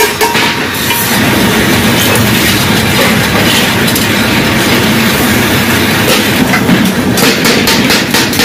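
Stainless steel sheet and cylinders rattling and scraping as they are handled and turned on a workshop floor, with a quick run of sharp metal taps near the end.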